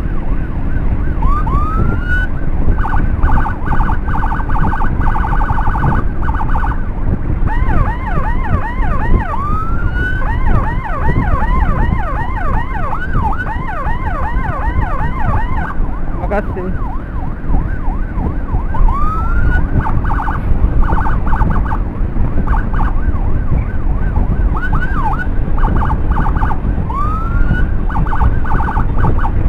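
Electronic emergency siren on an escort motorcycle, a 60-watt unit, cycling through its patterns: a rising whoop that breaks into a rapid pulsing tone, repeated several times, with a stretch of fast repeated chirps in the middle. Under it runs the steady low rumble of the motorcycle and wind.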